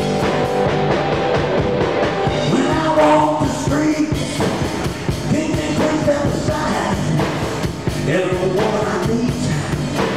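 Live rock band playing, with electric guitars over a drum kit's steady beat and a singer's voice joining in a few seconds in.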